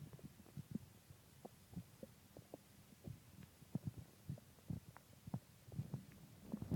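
A person's stomach gurgling faintly in short, irregular low pops and bubbles, growing busier and louder near the end: a full stomach digesting a large meal of pizza and ice cream.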